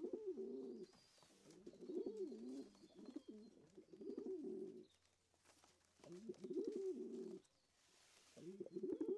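Domestic pigeons cooing: low, bending coo phrases repeated about five times, with short pauses between them.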